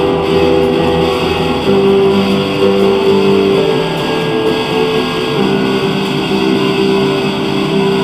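Instrumental music with long held notes.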